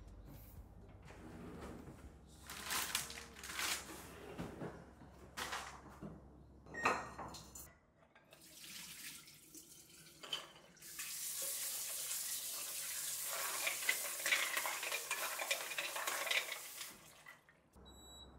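Kitchen tap running into a stainless-steel sink while clams are rinsed in a glass bowl, a steady rush that stops near the end. Before it come scattered clicks and knocks of dishes and things being handled, with a cabinet door opening at the start.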